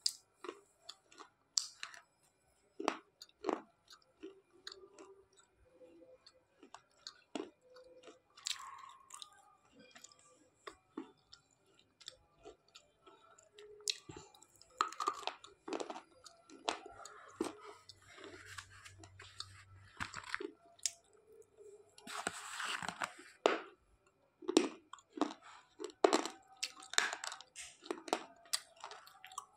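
Slate pencil being bitten and chewed: irregular crisp crunches and grinding chews, louder and denser in the second half.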